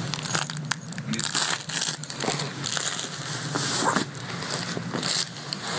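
Close handling noise on the camera's microphone: irregular rustling, scraping and small knocks as a baby's head brushes and bumps against the camera.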